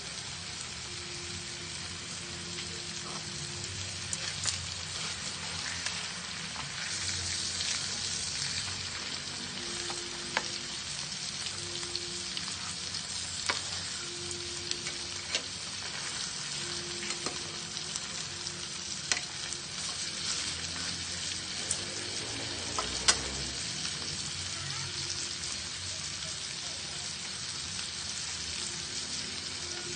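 Pork chops sizzling as they cook: a steady frying hiss broken by occasional sharp clicks.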